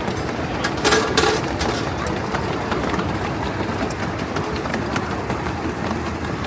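Steady rumble of a 7¼ inch gauge miniature steam train running along the track, heard from on board, with a brief louder burst about a second in.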